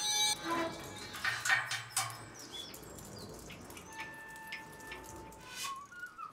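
Stylised jungle ambience: a scatter of drips and sharp clicks with short bird-like chirps, and a held whistle-like tone lasting about a second around the middle.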